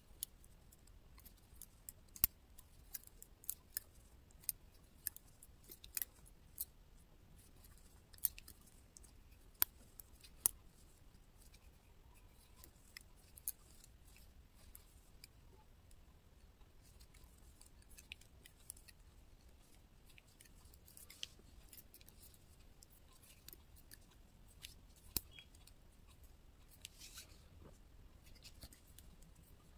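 Double-pointed knitting needles clicking and tapping against each other as stitches are worked. The clicks are faint and irregular, coming thick for roughly the first ten seconds, then more sparsely.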